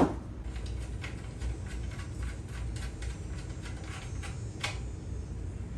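A sharp metallic knock, then a run of light, irregular clicks and taps from metal parts and tools being handled while the motor is refitted onto the air compressor.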